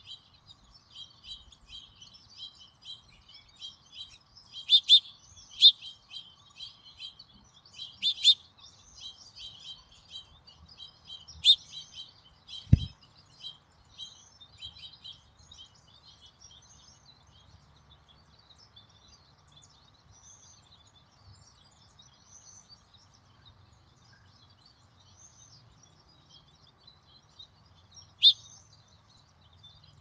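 Small songbirds chirping: a dense run of short, high chirps with several louder ones, thinning out in the second half. A single low thump comes a little before halfway.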